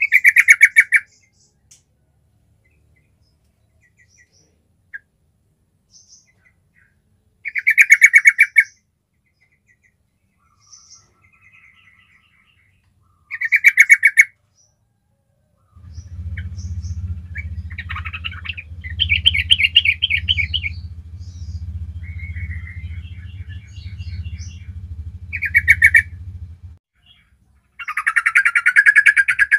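Yellow-vented bulbul singing: short loud phrases of rapid notes repeated every few seconds, with a few quiet chirps in between. A low steady hum sounds behind the song through the middle of the clip.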